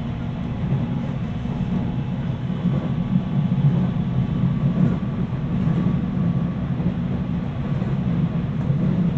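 Interior running noise of a JR East 719 series AC electric train at speed: a steady low rumble with a faint continuous whine on top. The uploader hears that whine as jet-like and unusual, and labels the car a noisy 'jet car'.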